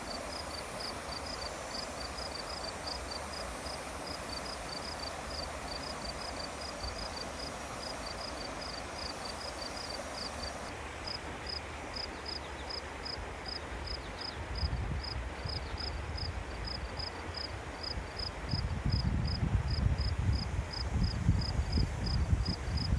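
Water running steadily, with a high chirp repeated evenly about three to four times a second throughout. A low rumble comes in about two-thirds of the way through and grows louder near the end.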